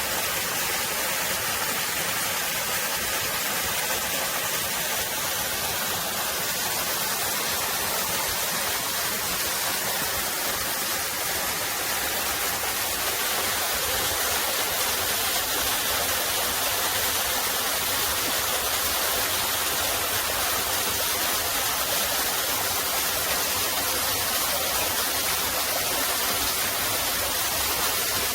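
Mountain valley stream running steadily: an even, unbroken rush of water.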